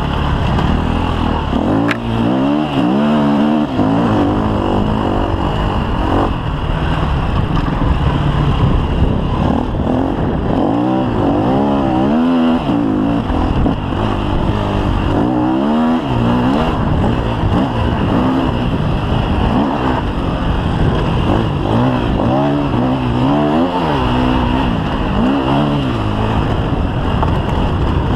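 KTM EXC 250 F's single-cylinder four-stroke engine heard from on board, its revs rising and falling over and over as it accelerates and shifts through the gears, over a steady rush of wind on the microphone.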